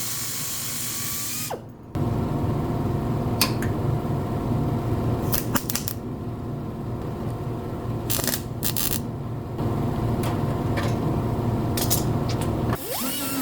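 A power tool running steadily for about ten seconds, with a few sharp clicks, then stopping suddenly; a quieter steady machine hum before it starts.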